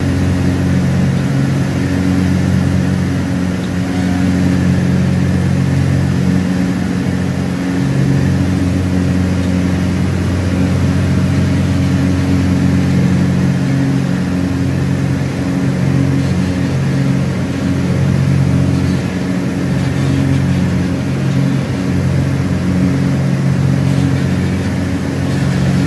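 Twin piston engines and propellers of a Cessna 404 Titan (turbocharged, geared Continental flat-sixes) droning steadily, heard inside the cabin in flight. The low hum does not change in pitch.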